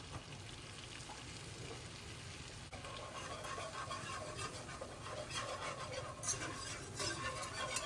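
A wire whisk stirring flour into sizzling melted butter in an enameled cast iron pan, the start of a roux. The steady sizzle runs under the whisk's scraping, and from about halfway on the whisk taps the pan now and then, more often near the end.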